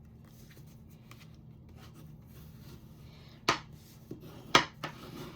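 Cardstock being handled and rubbed faintly along a score line to reinforce the fold, then two sharp knocks about a second apart, the second the loudest, as the paper or a tool is set down on the work table.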